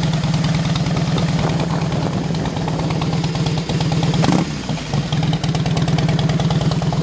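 2006 Harley-Davidson Heritage Softail Standard's fuel-injected Twin Cam 88B V-twin idling with an even, loud beat through Samson true dual exhaust with fishtail tips, which are a little on the loud side. There is one short surge in the sound a little past four seconds in.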